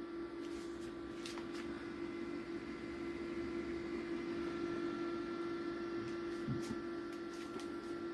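Old Core 2 Duo desktop PC running on its newly fitted power supply, with a steady hum from its fans. A few light clicks and taps come and go.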